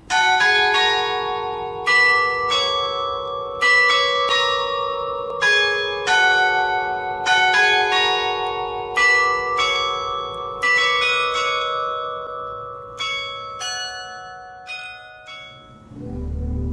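Church bells ringing, a run of irregularly spaced strokes with long ringing overtones that thin out and die away. Near the end a pipe organ starts playing low held notes.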